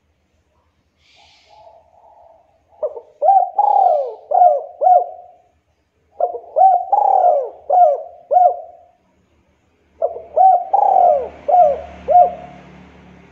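Spotted dove cooing: three phrases of several short coos each, starting about three, six and ten seconds in.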